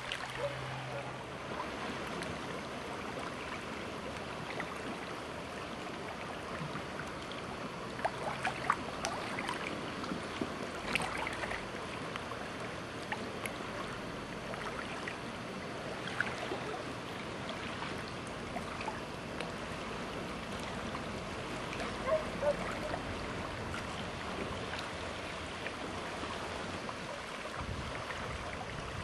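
Steady wind and water noise from open water, with scattered short splashes or knocks.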